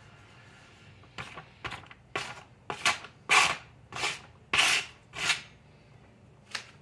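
A knife blade being stroked across a sharpening stone: about nine separate scraping strokes, roughly two a second, loudest in the middle, with a pause before one short last stroke near the end.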